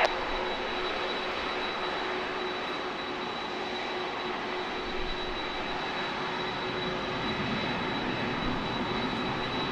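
Boeing 737-400 jet engines running during the landing rollout, heard from a distance as a steady, even rush with a thin high whine, swelling slightly near the end.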